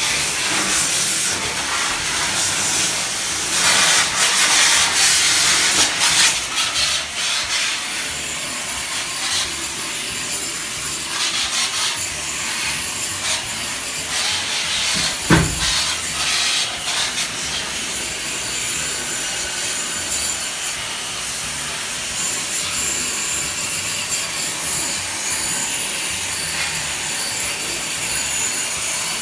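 Water being sprayed onto an air conditioner's indoor unit, a steady hiss that is denser in the first few seconds. A single knock sounds about halfway through.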